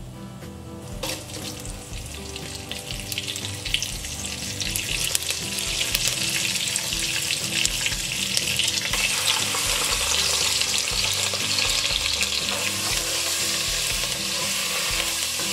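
Green chillies and curry leaves frying in hot oil with cumin seeds and whole red chillies: a crackling sizzle that starts about a second in and grows louder, stirred with a wooden spatula.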